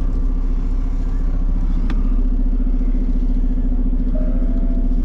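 Semi truck's diesel engine running at low speed while the rig is manoeuvred back and forth to line a trailer up with a dock, a steady low drone. A single sharp click about two seconds in.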